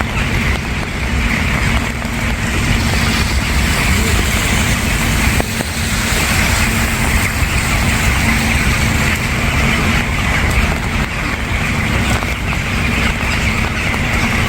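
Steady rain falling, an even hiss over a constant low rumble.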